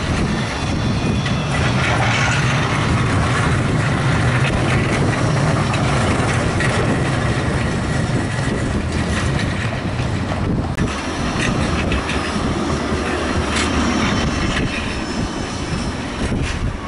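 Bombardier Flexity 2 trams running past on street track: a steady rumble of steel wheels on the rails, louder in the first half.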